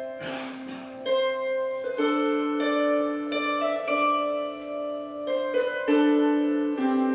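Wire-strung early Irish harp, a replica of the Trinity College harp, played solo: a melody of plucked notes, each ringing on long and overlapping the next.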